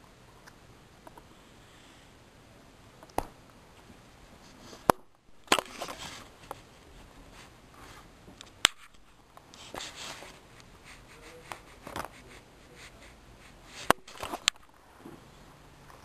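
Handling noises: a series of sharp, separate clicks and knocks, about seven in all, with brief rustling between them.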